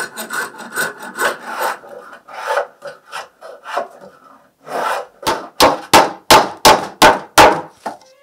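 Hand tools rasping on wood in back-and-forth strokes. The strokes are lighter and irregular in the first half, then about eight hard strokes come roughly three a second.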